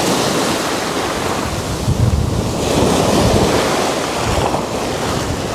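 Surf breaking and washing in over sand and rocks close by, in a continuous rush that swells and eases with each wave.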